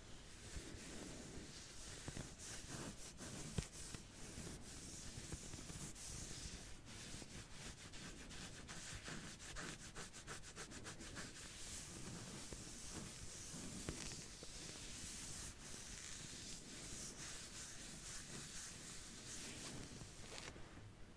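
Soft, close-up back-scratching sounds: scratching rubbed back and forth in strokes, which quicken into a run of short, rapid scratches in the middle.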